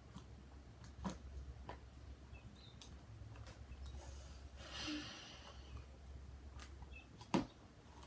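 Sticky slime being kneaded and pulled by hand: scattered wet clicks and pops, a short swishing rustle about halfway through, and a sharper snap near the end, over a low steady hum.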